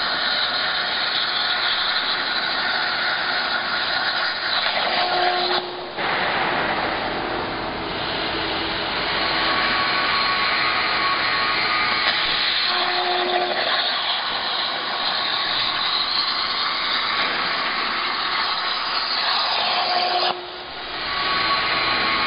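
CNC plasma cutting torch cutting metal plate: a loud, steady hiss of the arc, with two short drops about six seconds in and near the end before it carries on.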